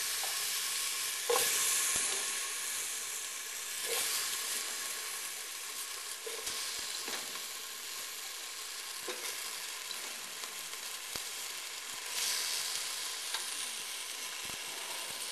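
Butternut squash and carrots sizzling in oil in a wok with curry paste, stirred now and then, with a few light knocks of the utensil against the pan.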